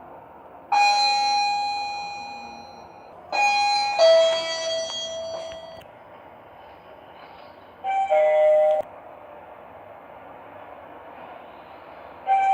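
Sigma elevator arrival chimes. First a single chime note rings and fades, then a two-note falling ding-dong. About eight seconds in comes a short, clipped two-note electronic beep.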